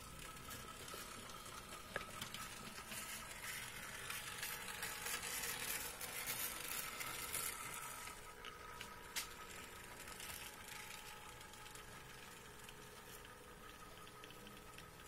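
HO scale model diesel locomotive running along the track: a faint whirring hiss from its motor and wheels that swells a few seconds in and then eases off, with two sharp clicks, about two seconds in and about nine seconds in.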